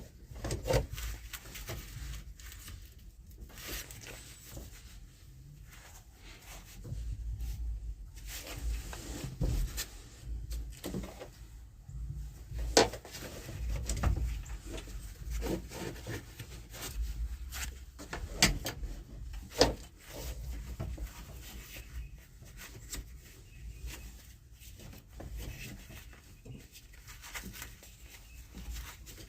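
Hands working a joystick control cable and its fittings into place: irregular rubbing and handling noise with scattered clicks and a few sharp knocks.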